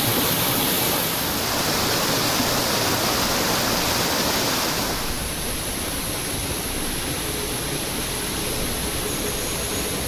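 Water rushing and splashing over rocks in a small forest stream cascade, a steady rush that changes slightly and gets a little quieter about halfway through.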